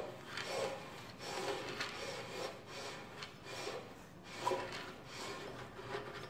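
Fabric webbing drive belt being slid through the hands and the kBox4's pulley and locking mechanism to lie smooth: a run of rubbing, swishing strokes, one or two a second.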